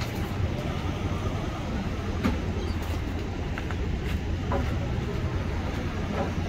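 Steady low vehicle rumble, with a few light clinks and knocks of crash debris being handled.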